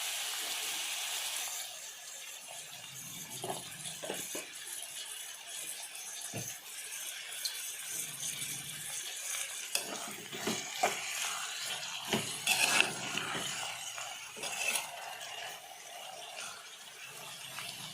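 Vegetables sizzling in hot oil in a pan, loudest for the first couple of seconds, then a quieter cooking hiss with scattered clinks and knocks of a utensil against the pan.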